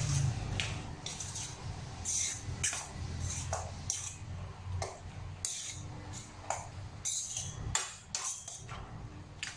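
Metal spoon scraping and clinking irregularly against a stainless steel mixing bowl as a chunky diced eggplant mixture is stirred, over a low steady hum that stops near the end.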